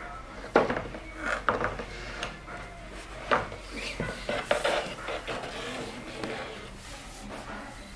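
Wooden boards knocking and clacking against each other as they are pulled one by one from an upright store rack, a run of irregular sharp knocks over a low steady hum.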